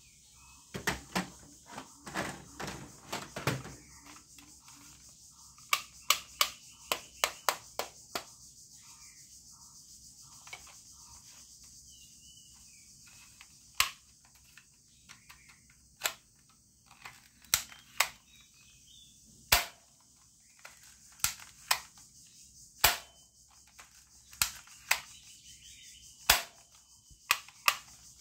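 Plastic toy guns being handled: irregular sharp plastic clicks and clacks, in quick runs at times, over a steady high hiss.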